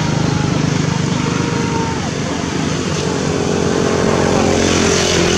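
A small engine, such as a motorcycle's, running steadily at an even speed, with faint voices in the background.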